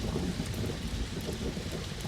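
Rainstorm: steady rain falling with a continuous low rumble underneath.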